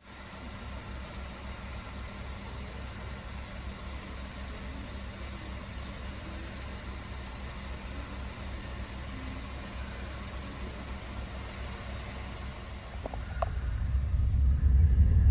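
Car on the move: a steady low engine and road rumble that grows louder near the end.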